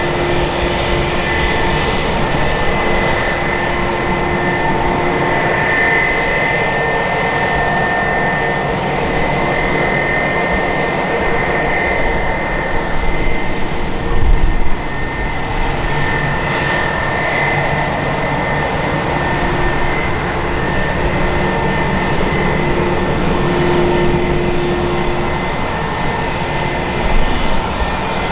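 Eurowings Airbus A319's two IAE V2524-A5 turbofans at taxi power as the airliner rolls past: a steady jet whine with several held high tones. A brief low thump comes about halfway through.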